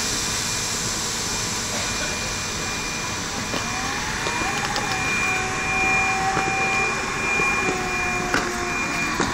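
Railway station train noise: a steady hiss with a whining tone that rises about three and a half seconds in and then holds, and a couple of sharp clicks near the end.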